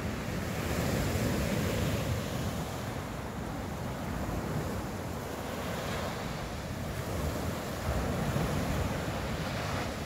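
Sea surf washing ashore, with wind rumbling on the microphone. The wash swells up twice, about a second in and again near the end.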